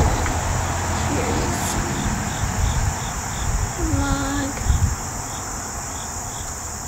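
A cricket chirping steadily, about three chirps a second, over a low, unsteady rumble.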